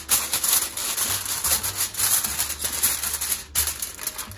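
Aluminum foil crinkling and crackling as it is pressed and crimped tightly over a baking dish by hand.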